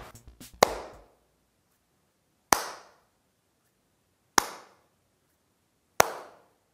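A sarcastic slow clap by one person: four single hand claps, evenly spaced a little under two seconds apart, each trailing off in an echo.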